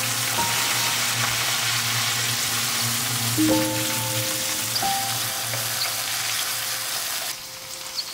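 Tempering frying in hot oil in a metal kadai, with dried red chillies, green chillies, coriander leaves and curry leaves in the pan: a steady, dense sizzle that dies down about seven seconds in. Background music with a few held notes plays over it.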